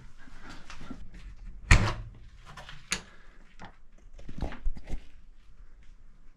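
A series of irregular knocks and clunks, with one loud thump about 1.7 seconds in and a cluster of smaller knocks a few seconds later.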